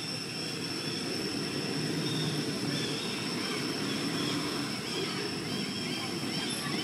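Steady outdoor background: a low rumble under a constant high-pitched whine, with faint short chirps scattered through.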